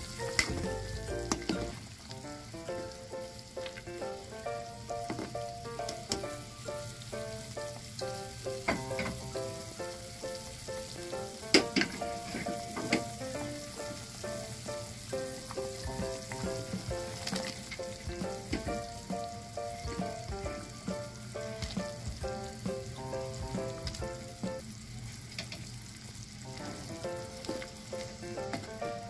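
Food sizzling in a cooking pot and being stirred, with a few sharp clinks of a utensil against the pot, the loudest about twelve seconds in. Background music with a melody of held notes plays throughout.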